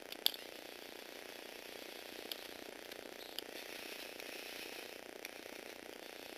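Tamiya Universal Gearbox motors whirring faintly as a Lego Technic grader drives across a wooden floor, with a few sharp clicks from the plastic gearing, the loudest just after the start. The whir grows a little stronger in the middle as the model passes close.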